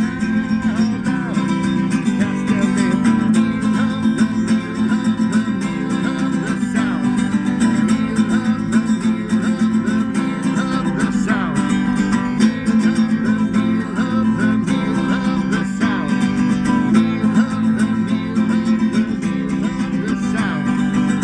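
Music: an instrumental passage of a song, led by strummed guitar.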